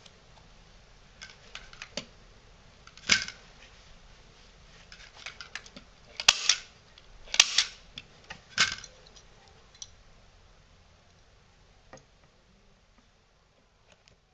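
Hand staple gun firing staples into a wooden canvas stretcher frame: four loud, sharp snaps, about three, six, seven and a half and eight and a half seconds in, with lighter clicks and taps between them.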